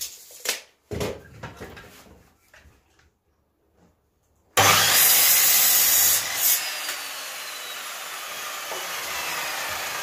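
A sliding compound miter saw starts and crosscuts a length of scrap wood about 4.5 seconds in, after a few light knocks of the wood being handled. The motor then runs on more quietly, and the blade winds down with a slowly falling whine.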